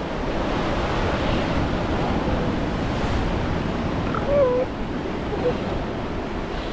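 Ocean surf breaking and washing up a sandy beach, with wind on the microphone. About four seconds in comes a short wavering call.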